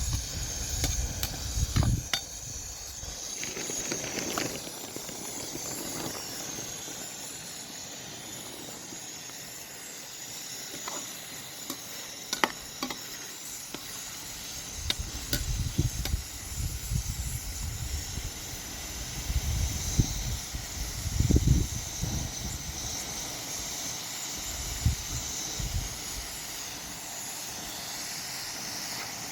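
Food sizzling as it fries in a pan, a steady high hiss, with scattered sharp clicks and, later on, several low knocks, as of a utensil stirring and handling the pan.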